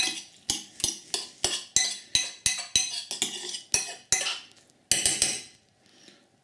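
A spoon knocking and scraping against a glass Pyrex dish while stirring curry paste into hot, softened onions. The knocks come about three a second, stop about four seconds in, and a few more follow about a second later.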